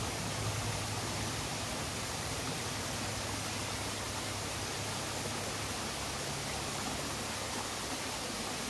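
Small rocky forest stream running over stones and little cascades, a steady even rush of water.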